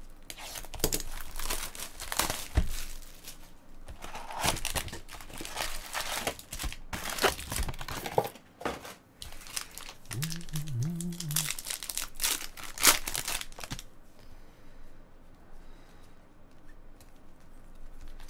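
Rapid crinkling and tearing of a 2016 Topps Chrome Baseball box and its foil card packs as they are torn open and handled. The crackling is densest over the first fourteen seconds or so, then gives way to softer handling of the cards.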